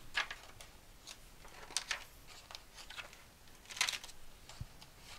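Pages of a spiral-bound book being turned by hand: short, soft paper rustles and flicks, the loudest a little before two seconds in and again near four seconds.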